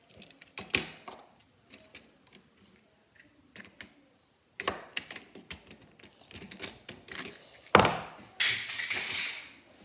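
Small plastic clicks and clacks as a Transformers Bumblebee toy's parts are twisted and snapped into place by hand, scattered at first and thicker from about halfway through. A sharp knock comes near the end, followed by about a second of rustling noise.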